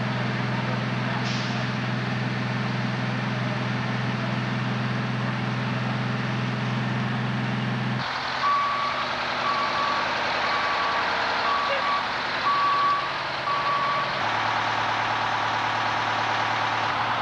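Fire trucks' engines running steadily at a fire scene. About eight seconds in, a truck's reversing alarm sounds a row of short high beeps, about one a second for some five seconds, over the engine noise.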